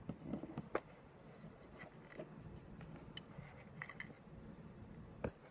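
A few faint clicks and taps over a steady low room hum, the sharpest about a second in and again near the end.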